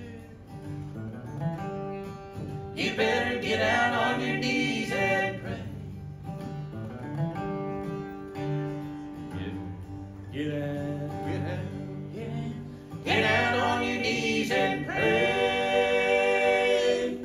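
Acoustic bluegrass band playing: flat-top guitar, mandolin and fiddle. Close harmony singing comes in louder about three seconds in and again about thirteen seconds in, over the instruments.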